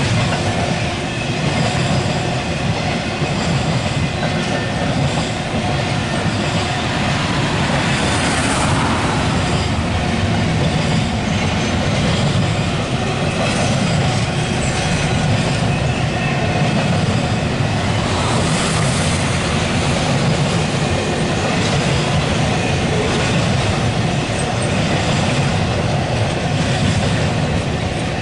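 Double-stack intermodal freight cars of a CSX train rolling past steadily, wheels running on the rails.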